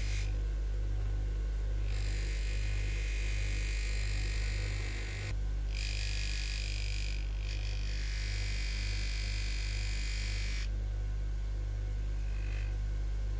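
Bench grinder motor running with a steady electric hum, and a harsh hiss each time a vise casting is pressed against the spinning wheel: contact in stretches of a few seconds, from about 2 to 4.5 seconds in and from about 6 to 10.5 seconds in, with a light touch near the end.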